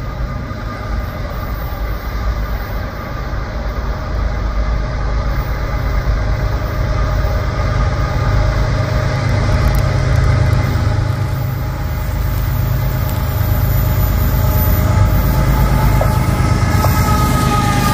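Diesel-electric freight locomotives, led by a GE ES44AC, running under power as the train approaches, a heavy low engine rumble growing steadily louder as it nears.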